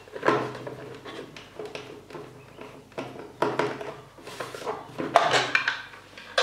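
Plastic cover of a motor start-stop switch box being worked loose and taken off, with irregular clicks, scrapes and rattles of the plastic case coming in bursts.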